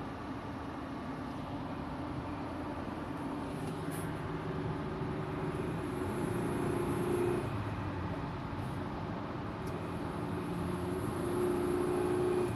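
A 2003 Outback AWD's engine revving up under acceleration twice, its note rising and growing louder each time before dropping back, with a weird metallic sound during acceleration that the owner suspects comes from the heat shields.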